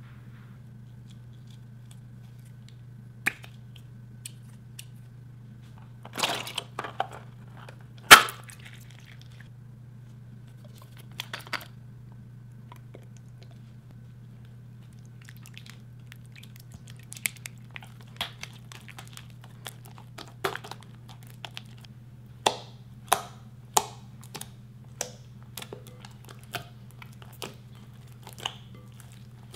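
White glue slime stirred with a silicone spatula in a glass bowl, then kneaded and pressed by hand, giving scattered short sticky clicks and squelches that come thick and fast in the second half. A few sharper snaps come earlier, the loudest about eight seconds in, over a steady low hum.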